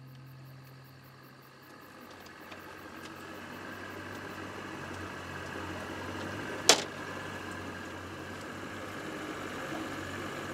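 Boat motor idling, its sound swelling gradually, with one sharp click about two-thirds of the way through.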